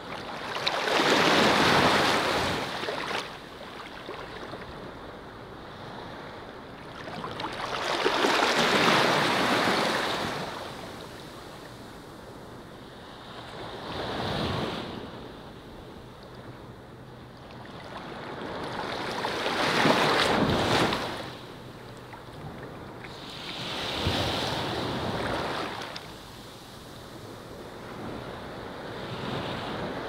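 Sea waves washing onto a shore, each surge swelling into a rushing hiss and falling away, about six times, roughly every five to six seconds.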